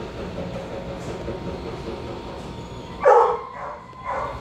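A dog barking: a loud first bark about three seconds in, then more barks about twice a second, over low steady background noise.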